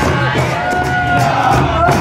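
Holi folk music: a drum beating a steady rhythm, about three strokes a second, under a held, wavering melody line.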